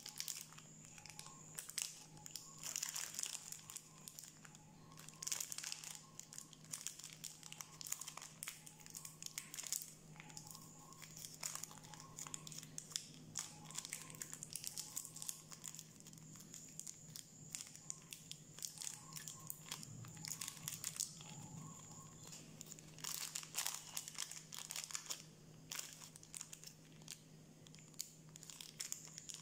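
Snickers bar's plastic wrapper crinkling and tearing as it is torn open at one end, in irregular crackles, with a faint steady hum underneath.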